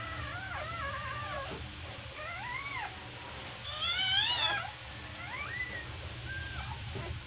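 Newborn border collie puppies crying: a string of high, squeaky cries that waver up and down in pitch, the loudest about four seconds in.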